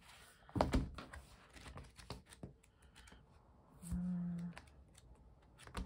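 Stiff pages of a sticker book being flipped and handled: paper rustling with scattered soft taps and clicks, the strongest about half a second in. A short hummed "mm" about four seconds in.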